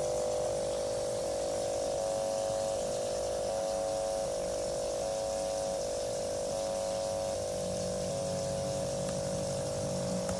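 Electronic whine from a laptop: a cluster of steady mid-pitched tones that shift to new pitches in steps every second or less, over a faint hiss.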